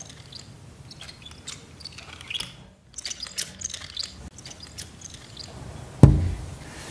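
Scattered small squeaks and creaks of a wheelchair rolling across a wooden floor, then a sudden deep boom about six seconds in, a horror-film jump-scare sound-effect hit.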